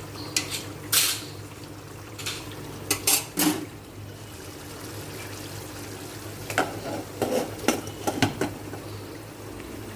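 Kitchen dishes and metal utensils clattering: scattered clinks and knocks of pots, bowls and spoons being handled and set down, in a few separate clusters, over a steady low hum.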